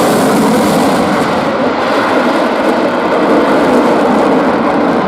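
U.S. Navy F-35C Lightning II's afterburning turbofan, a single Pratt & Whitney F135, heard as loud, steady jet noise as the fighter flies overhead.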